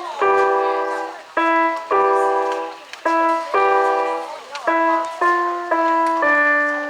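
A simple melody played one note at a time on a keyboard instrument, each note held for about half a second to a second.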